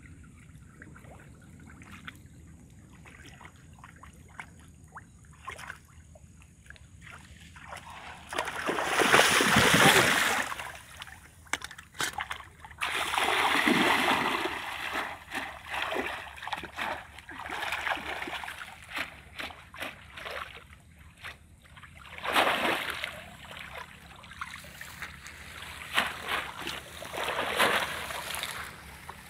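Splashing and sloshing in shallow muddy water as a person wading grabs at fish with bare hands. It starts with small water sounds, then comes a series of loud splashing bouts, the longest about eight and thirteen seconds in.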